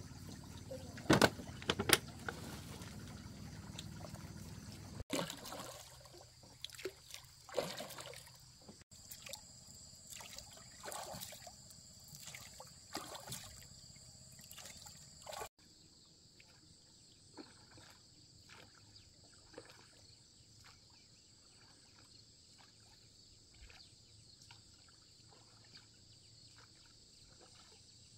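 Small boat with bamboo outriggers knocking as someone steps aboard, with a few sharp loud knocks about a second in. Then oars are worked and dipped into lake water, with irregular knocks and small splashes. After about the middle the strokes are faint over a steady high hiss.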